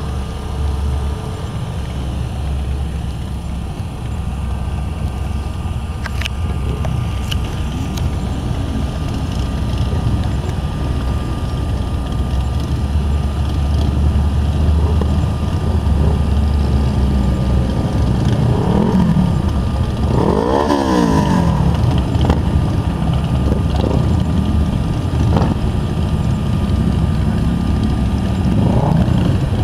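Traffic: a steady low engine rumble, with a vehicle passing close by about two-thirds of the way through, its engine note sweeping in pitch as it goes by.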